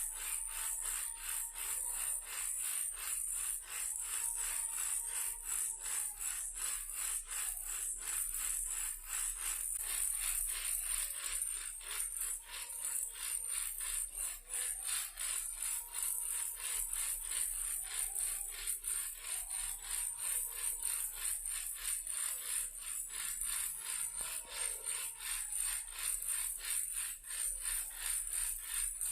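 Toy car rattling as it is shaken, a quick, steady run of short dry rattles with a bright hiss.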